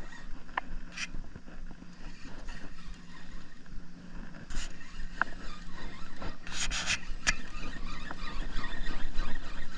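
A steady low motor hum, with a few faint clicks and a brief hiss about six and a half seconds in.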